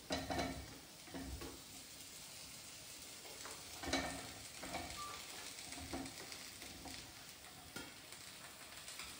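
Chopped potato, carrot and red capsicum dropped by hand into a pan of onions frying in oil: a faint steady sizzle, with soft knocks as pieces land, the loudest about four seconds in.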